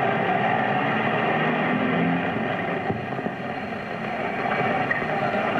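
World War II military jeep engine running as the jeep drives up a dirt track, heard through a hissy old film soundtrack.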